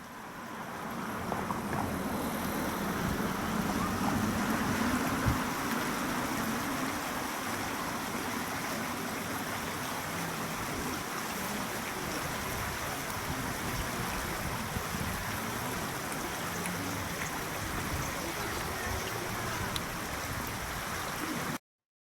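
River water babbling steadily over shallows, an even rushing murmur. It cuts off abruptly shortly before the end.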